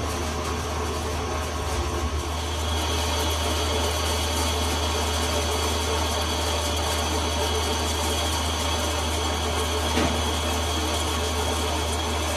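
Metal lathe running steadily with a low hum. About two seconds in it grows a little louder and a steady high whine joins. A single click comes near the end.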